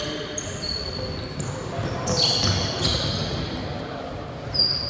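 Basketball game in a gym: a ball bouncing on the court, short high sneaker squeaks, and players' voices in the background.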